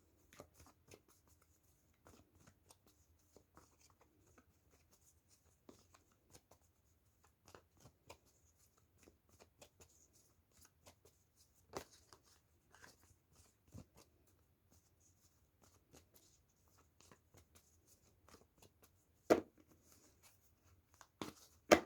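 Tarot cards being shuffled and handled: a run of soft card clicks and rustles, with a few louder sharp taps, the loudest near the end.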